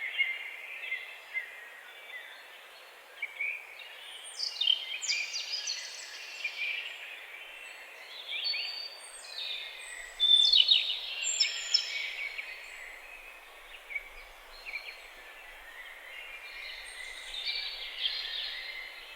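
Forest ambience: several birds chirping and trilling in overlapping short calls, busiest in the middle stretch, over a steady soft hiss.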